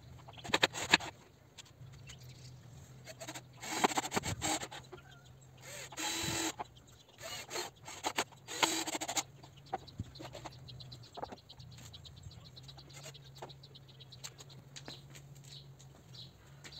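Cordless drill driving screws into wooden boards in a few short bursts around the middle, with knocks and clatter of planks being handled in the first seconds. Birds chirp faintly through the rest.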